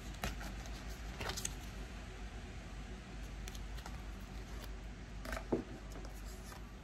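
Tarot cards being handled: a few soft clicks and rustles of card stock, the loudest about five and a half seconds in, over a steady low background noise.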